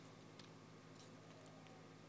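Faint, scattered small clicks of a screwdriver tip scraping old adhesive off an iPhone 3GS frame, over a steady low electrical hum; otherwise near silence.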